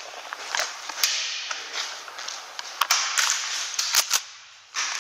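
Airsoft gunfire: a handful of sharp, separate cracks of replica shots and BB hits, the loudest cluster about four seconds in, over a rustling hiss of movement and gear.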